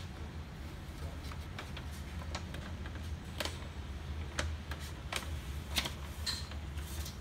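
Scattered light plastic clicks and taps as hands work inside the open front and paper path of a Samsung SCX-4321 laser multifunction printer, over a low steady hum.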